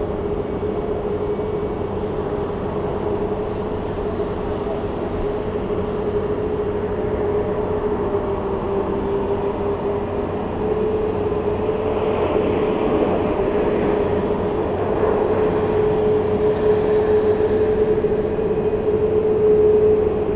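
Twin jet engines of a narrow-body airliner at takeoff thrust: a steady roar with a constant humming tone. It grows louder and rougher about halfway through as the jet lifts off and climbs out.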